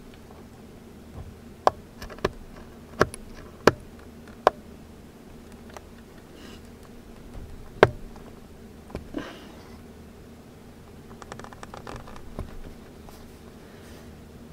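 Sharp, separate clicks and taps of small metal hand tools and a tiny plastic part on a work mat, about six in the first eight seconds, then a quick run of faint ticks a little past the middle, over a faint steady hum.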